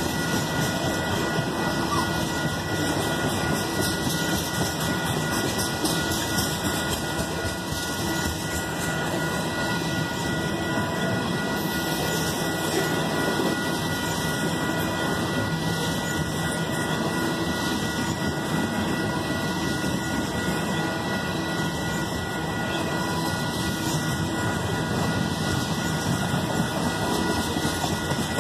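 Freight train of tank cars rolling past at speed, a steady, loud rumble and clatter of steel wheels on rail, with a steady high tone over it.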